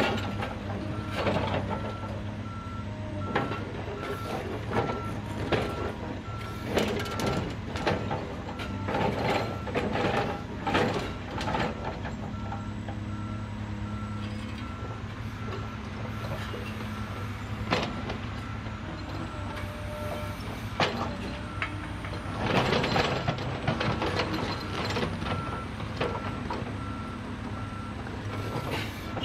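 Reversing alarm of a Volvo A25C articulated dump truck beeping steadily at one pitch as the truck backs up, over the low running of diesel engines. Irregular clanks and rattles come and go, a burst of them about three quarters of the way through.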